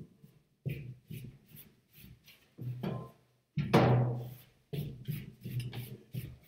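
Irregular percussive knocks and thumps, a few to the second, with one much louder hit about three and a half seconds in that rings on for a moment.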